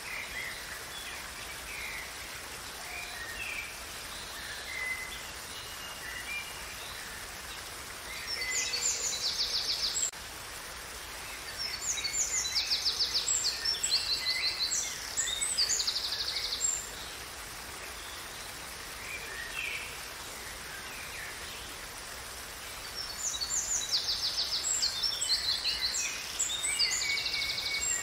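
Steady rush of water from a waterfall, with songbirds singing over it in three spells of fast trills and chirps, the last near the end.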